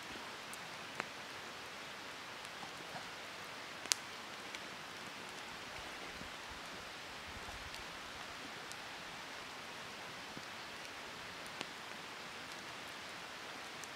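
Steady soft hiss of outdoor ambience, with a few sharp clicks of a knife and fork against a frying pan as meat is cut in it; the loudest click comes about four seconds in.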